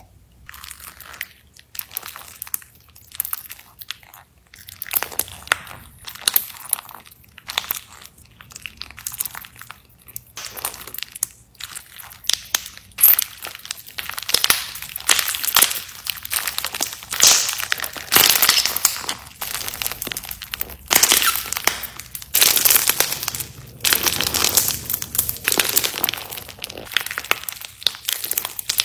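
Slime packed with colourful beads squeezed and kneaded by hand, crackling and crunching in quick irregular bursts. The crunching is sparse and soft at first, then grows louder and denser about halfway through.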